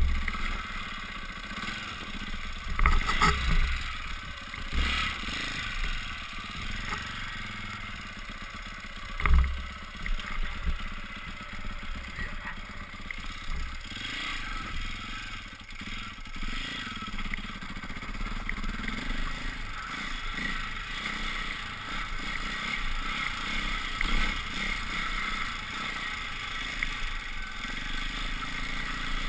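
Off-road motorcycle engine running as the bike is ridden over a rough gravel track, heard from a helmet-mounted camera. Several heavy thumps from bumps stand out in the first ten seconds.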